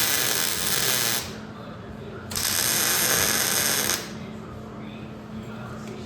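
A hand-held power tool run in two bursts of under two seconds each, about a second apart, with a harsh, rattly hiss.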